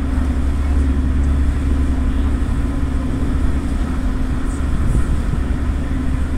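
Passenger ferry's engines running, a steady deep drone with a constant hum above it and no change in pace.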